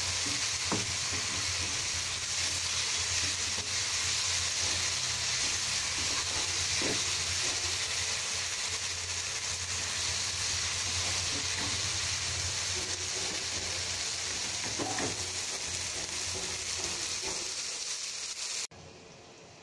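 String beans (goru chikkudu) frying in oil in a pan, sizzling steadily while a wooden spatula stirs them, with a few scrapes and knocks of the spatula against the pan. The sizzle cuts off suddenly near the end.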